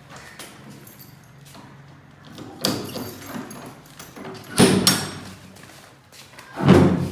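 A key rattling and turning in a door lock, with sharp clunks about two and a half and four and a half seconds in as the lock is worked, and a louder thump of the door near the end.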